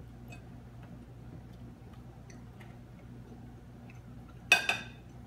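A few faint taps of a fork on a plate over a low steady room hum, then a sharp, ringing clink of a metal fork striking a ceramic plate about four and a half seconds in, with a smaller clink right after.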